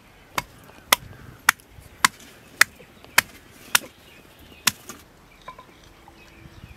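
Wooden pestle pounding ginger in a stone mortar: about eight sharp thuds, roughly two a second, that stop about five seconds in.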